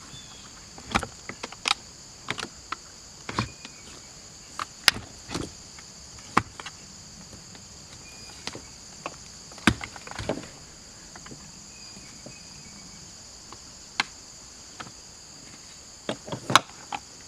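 Scattered sharp clicks and knocks of cable ends and box parts being handled as new control cables are worked into an outboard remote control throttle box, over a steady high chirring of insects.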